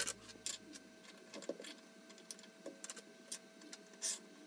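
Scattered light clicks and taps of aluminium extrusion bars knocking against each other and the wooden tabletop as they are fitted together into a frame, the loudest click about four seconds in.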